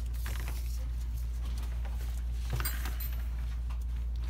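Steady low electrical hum with a few faint light clicks, one about half a second in and a sharper one about two and a half seconds in.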